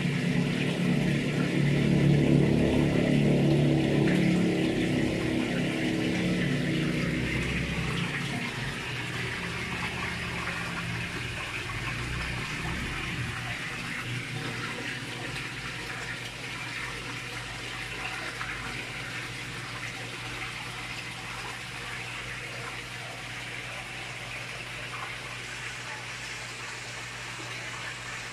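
Water pouring from a pond filter outlet and splashing steadily into the pond surface, with a low steady hum beneath. A louder low rumble runs through the first several seconds, then fades.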